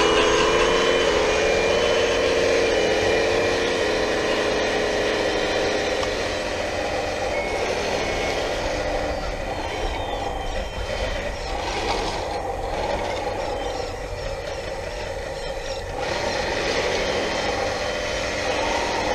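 1/14-scale hydraulic RC wheel loader running with a steady pitched whine, loudest at first and fading as it drives away over the dirt.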